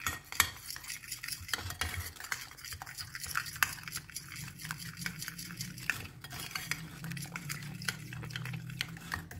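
Metal spoon stirring a thick yogurt and spice marinade in a glass bowl: a wet churning with irregular clicks and scrapes of the spoon against the glass.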